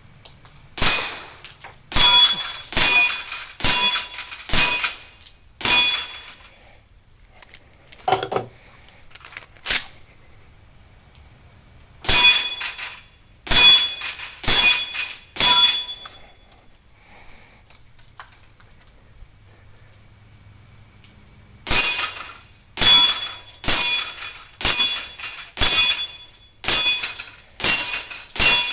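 Smith & Wesson M&P Pro Core 9mm pistol fired in strings of rapid shots, each shot followed by the metallic ring of a struck steel target. The shots come roughly one a second, in groups separated by pauses of a few seconds.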